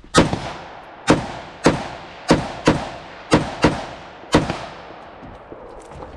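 Eight rifle shots from an AR-style semi-automatic rifle over about four seconds, some fired in quick pairs, each followed by a short echo.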